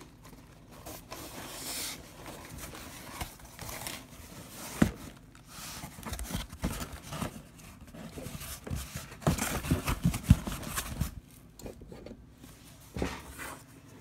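A taped cardboard shipping box being opened by hand: packing tape torn away and cardboard flaps scraping and rustling. Sharp clicks and knocks come about five seconds in and again around nine to ten seconds.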